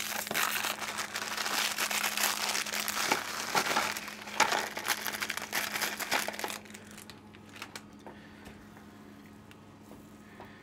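Plastic Oreo cookie wrapper crinkling and rustling as the cookies are pulled out by hand into a plastic tub; the crinkling stops about two-thirds of the way through, leaving a few faint clicks over a steady low hum.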